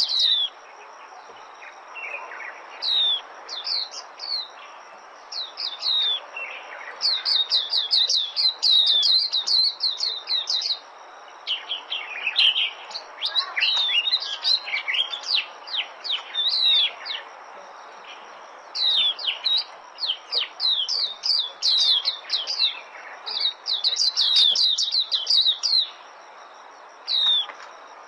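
White-eye singing a rapid, high twittering song in bursts of a few seconds, separated by short pauses, over a steady background hiss.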